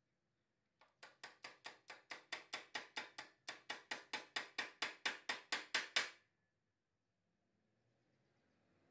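Small hammer tapping a thin steel strip over the edge of a bench vise jaw to bend it. Quick, even, ringing taps, about five a second, starting about a second in, with a brief pause midway, and stopping about six seconds in.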